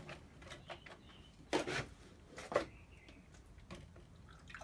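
Light clicks and knocks of a Keurig coffee maker being handled, with two louder sharp knocks about a second and a half and two and a half seconds in.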